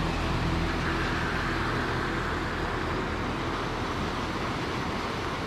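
Steady rush of a white-water mountain torrent.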